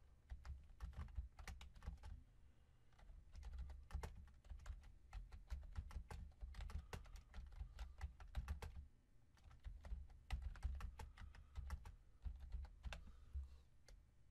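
Quiet typing on a computer keyboard: quick runs of key clicks with a low thud beneath them, broken by a couple of brief pauses.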